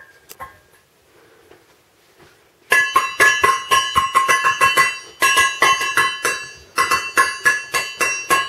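Metal food bowl banged rapidly with a metal utensil, sharp ringing clangs in three runs of about five strikes a second, starting a little under three seconds in. It is the noise stimulus of a puppy's sound-sensitivity test.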